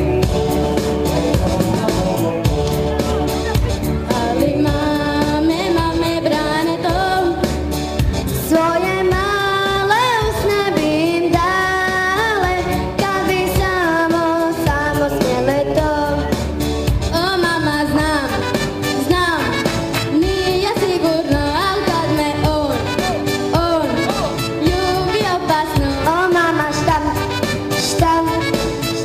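Two young girls singing a pop song as a duet into microphones over backing music; the singing comes in about four seconds in after a short instrumental stretch.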